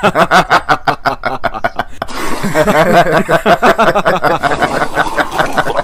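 Women laughing hard in rapid ha-ha pulses, with more overlapping laughter joining about two seconds in. It cuts off abruptly at the end.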